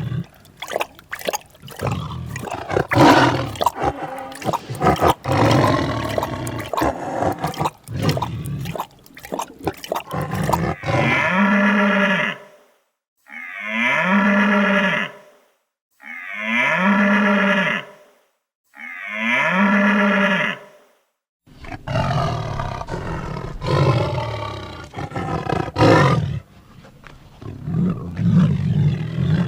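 A farm animal calling over and over: rough, noisy calls with clicks at first, then four long calls about two seconds apart, then more rough calls near the end.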